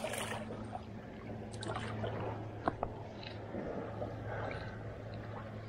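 A hooked smallmouth bass splashing at the surface beside the shore rocks as it is landed, with a splash at the start followed by lighter water sounds and a few sharp clicks.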